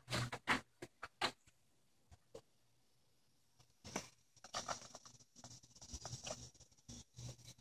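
German shepherd splashing in the water of a plastic kiddie pool: irregular short splashes and slaps, a few at the start, a pause, then a busier run from about halfway in.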